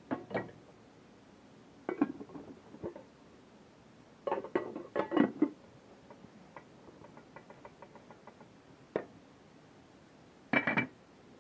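Aluminium pot lids clinking and knocking against the pots in short separate bursts, with a louder cluster about halfway through and another near the end, as a pot is covered with plastic wrap and its lid to steam.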